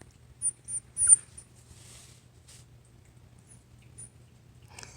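Puppies giving short, very high-pitched squeaks: a few quick ones in the first second or so, the loudest about a second in, and two faint ones near the end.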